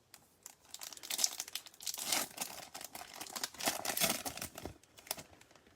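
A Topps Chrome baseball card pack's wrapper being torn open and crinkled by hand, an irregular crackling that goes on for about five seconds.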